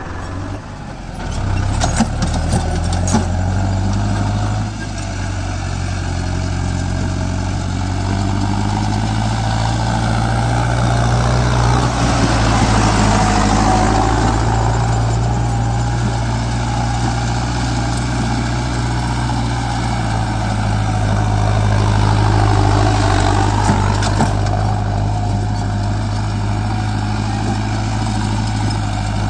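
Mahindra Arjun Novo 605 DI-i tractor's 57 HP diesel engine running steadily under load, driving a Shaktiman Champion rotary tiller through grass, with a few sharp clicks in the first few seconds.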